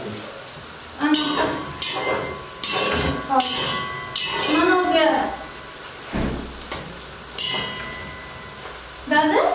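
Metal pots and pans clattering and knocking as a frying pan is pulled out of a kitchen cabinet, with a few sharp clinks spread through the first seven seconds, over some brief, indistinct talk.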